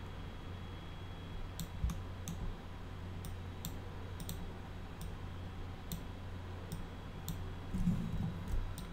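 Irregular sharp clicks of a computer mouse, roughly one or two a second, as a 3D light is dragged and rotated in the viewport, over a steady low hum.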